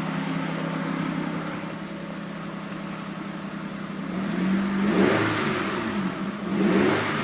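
2001 Mitsubishi Eclipse engine idling steadily, then revved twice, the pitch rising and falling back each time, about four and six seconds in. No lifter tick can be heard; the engine is running on oil treated with Marvel Mystery Oil.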